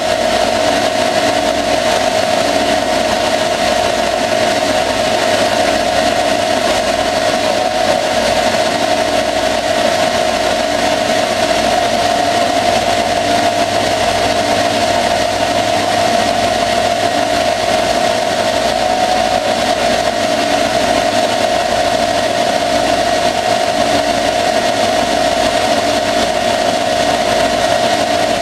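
Lathe turning a steel axle: the spindle runs with a steady whine over an even hiss while the turret tool cuts under flowing coolant.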